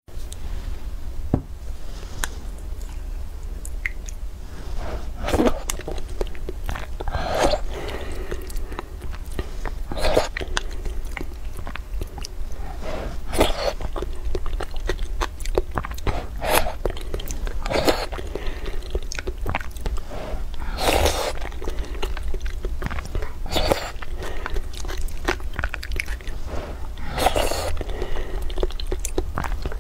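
Close-miked eating sounds of a person taking soft steamed egg custard off a wooden spoon and chewing it, with a sharper mouth sound every two to four seconds, over a steady low hum.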